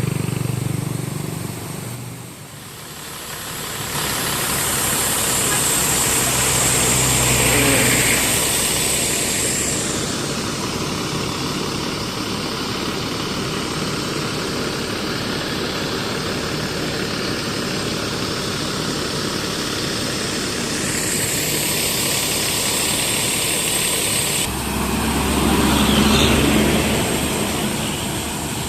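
Diesel engine of a stopped intercity bus idling steadily, with two louder swells building and fading, peaking around 8 s and 26 s in, like traffic passing.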